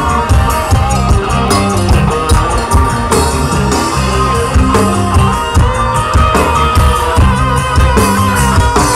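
Live dangdut band music played loud through an outdoor concert sound system and heard from within the crowd, with a steady driving beat under the melody.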